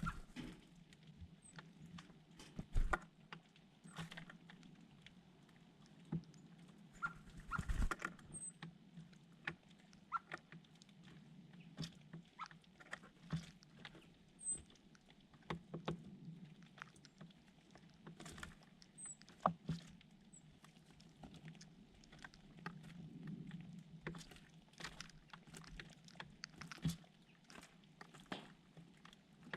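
Small birds moving about close to the microphone: irregular light taps and scratching, with a few faint, very high short chirps scattered through.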